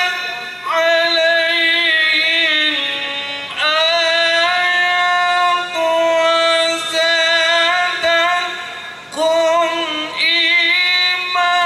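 A man's solo melodic Arabic recitation in the tilawah style, sung through a handheld microphone. He holds long ornamented notes in a high register, with short breaks for breath between phrases.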